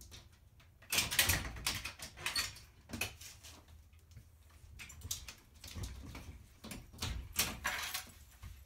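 A golden retriever pawing and scratching at a glass-paned door, the door knocking and rattling in irregular clusters of sharp hits.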